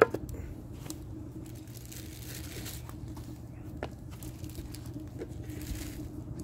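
A bamboo cutting board set down on a concrete block with one sharp knock at the start, followed by a few faint taps and handling noises over a steady low hum.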